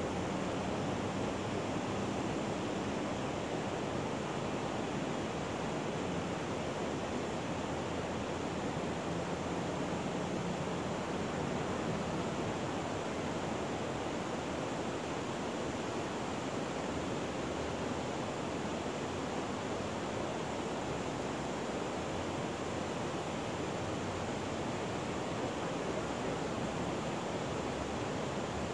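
Steady rush of water pouring over a low spillway, an even hiss that does not let up.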